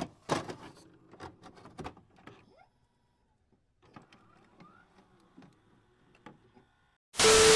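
Glitch sound effects for an animated intro: a run of sharp clicks and short stutters, then fainter crackles. About seven seconds in, a loud burst of TV-style static with a steady beep lasting under a second.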